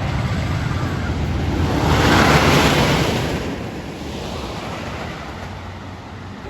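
Roller coaster train rushing past, a roar that swells about two seconds in and then fades away, over wind rumble on the microphone.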